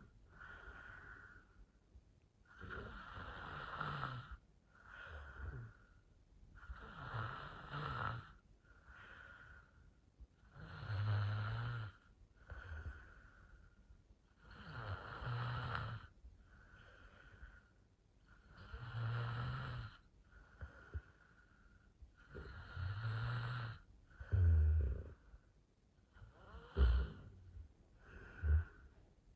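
A woman snoring in her sleep: a longer, louder snore about every four seconds with a shorter, softer breath between them. Near the end the rhythm breaks into a few short, sharp snorts.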